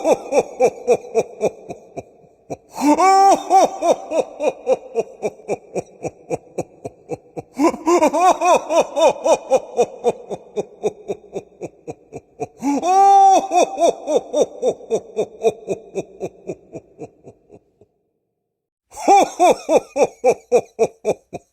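Santa Claus laughing 'ho ho ho' in several bouts. Each bout starts loud and trails off into a fast, fading string of ho's, with about a second of silence before the last one.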